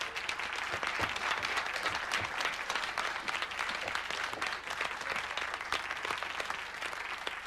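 Audience applauding: many hands clapping in a dense patter that eases off slightly near the end.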